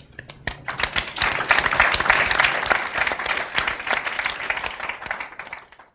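Audience applauding: a few claps that swell within about a second into full applause, then thin out and stop just before the end.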